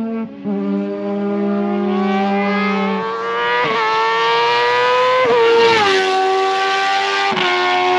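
Open-wheel race car engine accelerating hard toward the listener, its pitch climbing and dropping back three times with upshifts, about midway and near the end. A steady low drone runs under it for the first three seconds.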